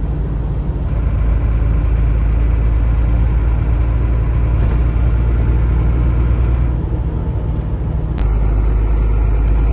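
Truck engine running steadily under way, heard inside the cab as a continuous low rumble with road noise, and a single sharp click about eight seconds in.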